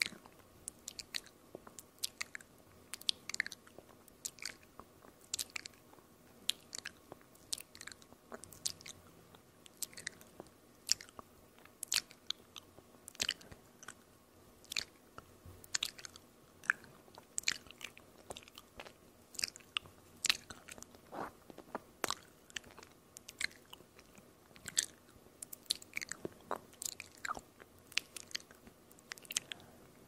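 ASMR mouth sounds made close to a microphone: a steady, irregular series of sharp little clicks and smacks from the tongue and lips, about two a second.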